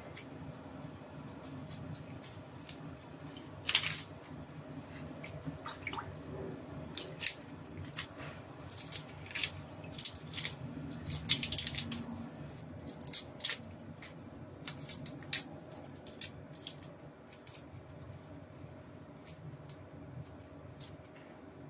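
Raw shrimp being peeled by hand over a basin of water: irregular sharp clicks and crackles of shells snapping and pulling off, with small drips and squishes, busiest about halfway through. A faint steady hum runs underneath.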